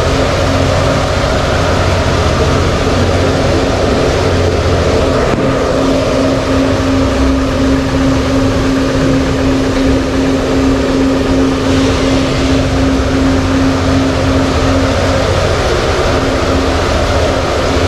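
Steady machine noise of bicycle-component fatigue and durability test rigs running, with a constant hum over it.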